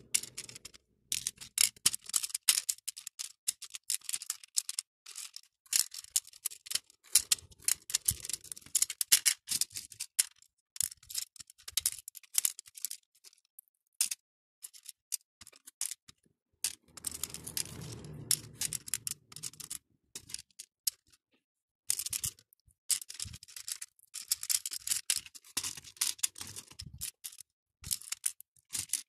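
Small acrylic beads clicking and clattering against each other and against a clear plastic compartment tray as they are picked out and dropped into its sections, in quick irregular runs of light clicks with short pauses. A duller rubbing, sliding sound comes in just past the middle.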